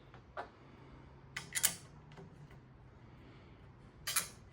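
A few light clicks and knocks of metal bike parts being handled, as drop handlebars are worked into the stem clamp. The loudest come about one and a half seconds in and about four seconds in, over a faint low hum.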